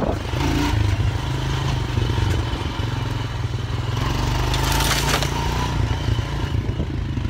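ATV engine running steadily while riding, with a brief clatter about five seconds in.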